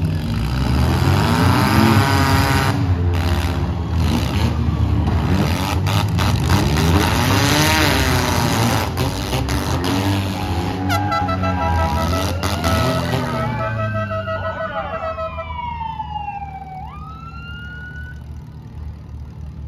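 Several demolition derby cars' engines revving up and down, with repeated crashes of metal on metal. About eleven seconds in a horn-like tone pulses, then the engines die down while a siren-like tone glides down in pitch and swoops up again.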